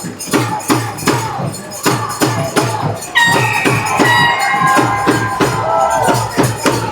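Music with a steady beat of about two strokes a second and shaker-like percussion, played over the arena's sound system; a held melody line comes in about three seconds in.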